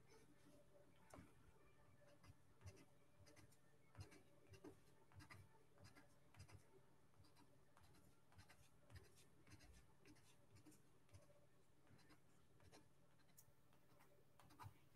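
Faint scratching and tapping of a felt-tip drawing pen on paper, as short strokes and dots are inked in irregular bursts.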